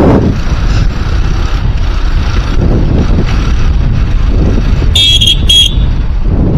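Motorcycle engine running at low road speed under heavy wind buffeting on the microphone. About five seconds in come two short, high-pitched rings.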